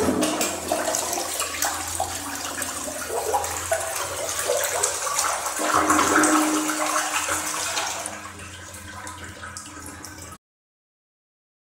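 Logasa Parati toilet from 2014 flushing: a sudden rush of water into the bowl that starts at once, runs strongly for about eight seconds, then tapers off.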